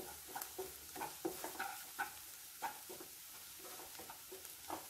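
Spatula stirring and scraping onion and spice masala around a nonstick pan, a string of short scrapes over a faint sizzle as the masala roasts. The strokes thin out for a moment past the middle, then pick up again near the end.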